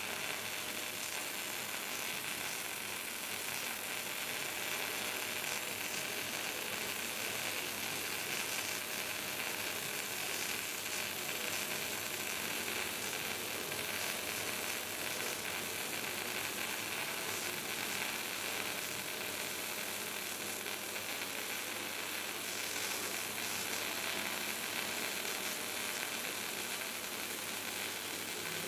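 Wire-feed welding arc crackling and sizzling steadily as it lays a full-penetration butt weld around a large steel tube.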